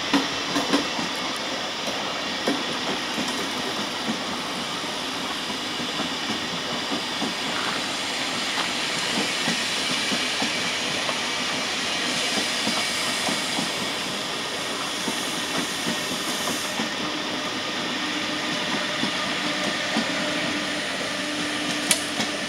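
SBB intercity passenger coaches rolling past on the rails: a steady rumble and hiss of wheels on track with clickety-clack over the rail joints. Near the end a low steady tone comes in as the red electric locomotive passes, along with a few sharp clicks.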